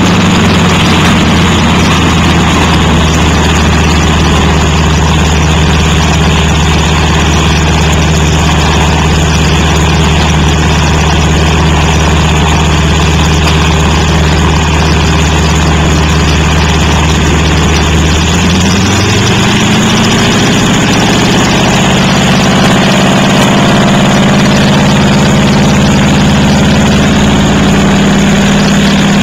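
De Havilland Canada Beaver's piston engine and propeller idling steadily, then opening up about two-thirds of the way through, the note rising over a couple of seconds and holding at higher power.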